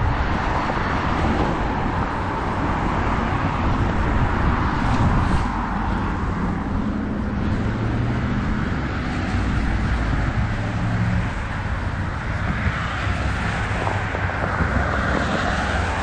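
Gusty wind buffeting the camera microphone over passing road traffic: cars driving by on a slushy road, with an engine hum in the middle.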